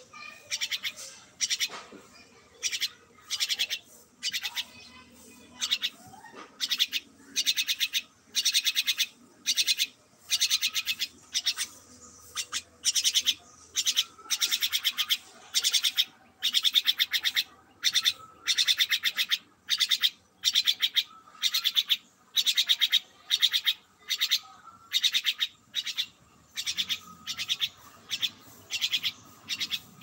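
Jungle myna giving harsh, rasping calls over and over, each about half a second long, at roughly one or two calls a second with short gaps between.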